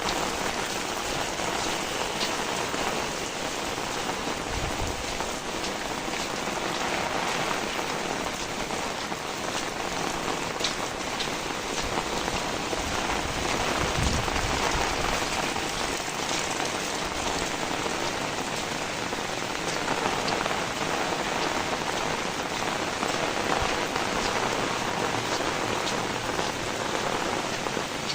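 Steady heavy rain falling and pattering on surfaces, with scattered individual drop ticks.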